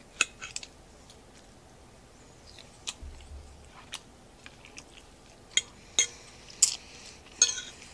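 Close-up chewing of a salad of spinach, cucumber and chicken, with scattered short clicks and crunches, the louder ones in the second half, and a steel fork picking at a ceramic plate.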